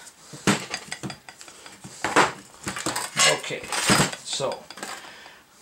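Rusty steel suspension parts clanking and clinking against each other and the workbench as they are picked up and moved: a string of irregular metal knocks, some ringing briefly.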